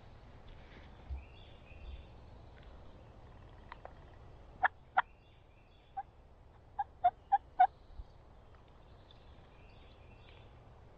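Turkey yelping in short sharp notes: two, a pause, then a quick string of four or five about a quarter second apart. Faint songbird chirps sound behind.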